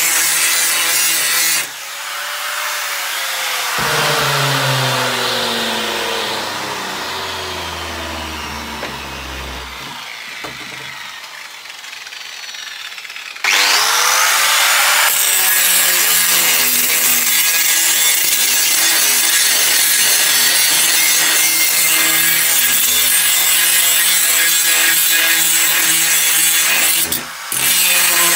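Angle grinder with an abrasive disc grinding rust off the steel blade of an old crosscut saw. It stops cutting after about two seconds, and its motor then winds down with a falling whine. About halfway it is switched on again, spins up and grinds steadily on the blade, easing off briefly near the end.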